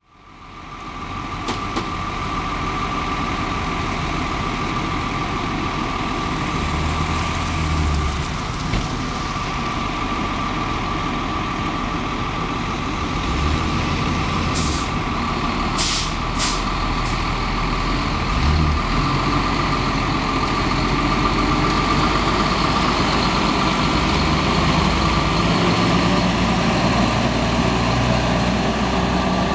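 Engine of a 1997 Tibotrac fire pump truck running with a steady high whine over it. A few short hisses of air brakes come around the middle, and the low engine sound grows stronger near the end as the truck pulls away.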